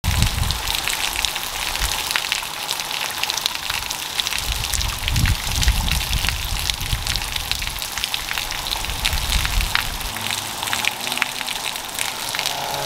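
Heavy rain pattering on wet pavement and puddles, a dense hiss full of individual drop splashes. Low gusts of wind rumble on the microphone during the first ten seconds or so.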